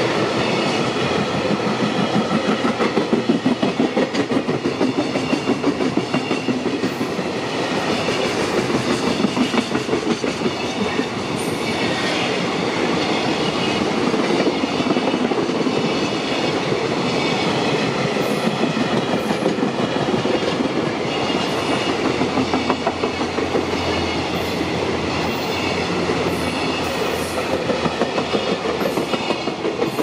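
Container flatcars of a long freight train rolling past, their wheels clacking over the rail joints in a steady pulsing rhythm.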